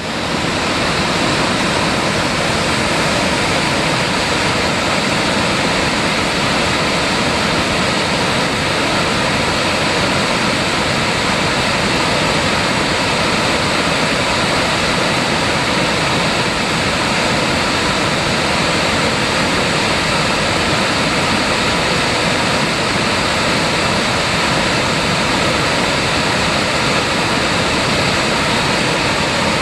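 Mountain valley stream water rushing and falling over rocks: a loud, steady, unbroken rush that cuts in suddenly at the start.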